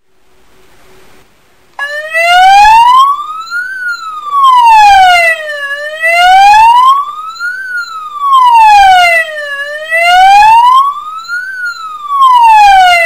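ME-S100 100-watt electronic siren sounding a slow wail tone, its pitch rising and falling smoothly about every four seconds. It starts about two seconds in and stops abruptly at the end.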